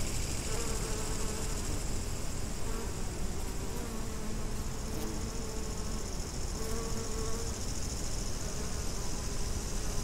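Bees buzzing, their hum coming and going several times as they fly past, over a steady high chirping of grasshoppers and wind noise on the microphone.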